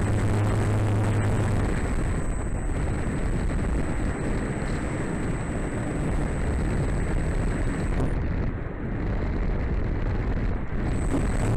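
RC Drifter ultralight model in flight, heard from a tail-mounted action camera: a steady rush of wind and propeller noise with a thin, steady high whine. The rush dips briefly about two-thirds of the way through.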